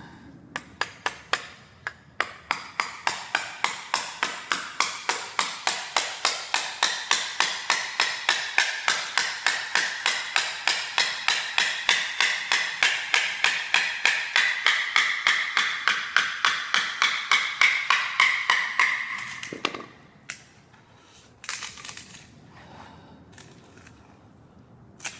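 Hammer striking a chisel in rapid, even blows, several a second, chipping glued-down hardwood flooring out down to the concrete underneath. The blows stop about three-quarters of the way through, followed by a few softer knocks and scrapes.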